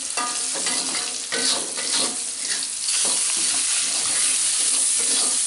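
Sliced tomatoes hitting hot oil and fried chili-shallot spice paste in a metal wok, sizzling, with a metal spatula scraping the pan as they are stirred in. The sizzle grows louder about three seconds in.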